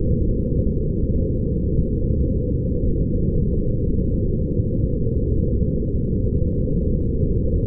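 Steady, deep rumbling sound effect with no tune or beat.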